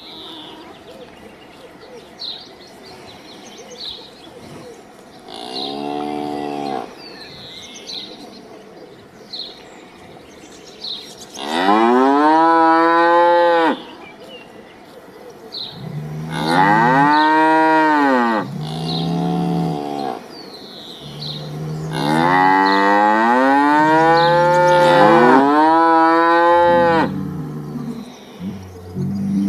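Cattle mooing: several long, drawn-out moos, each rising and then falling in pitch. The loudest start about eleven seconds in, and the calls overlap near the end. Faint short high chirps sound in the gaps between them.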